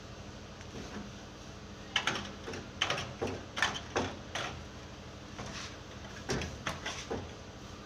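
A series of irregular knocks and clacks, about a dozen over a few seconds, over a steady low hum.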